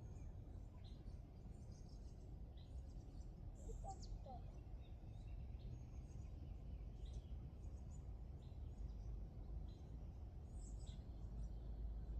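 Faint birdsong outdoors: scattered short high chirps and a few brief calls over a steady low rumble of background noise.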